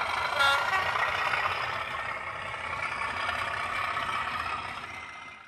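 Diesel locomotive engine running steadily, with a brief tone about half a second in, fading down near the end.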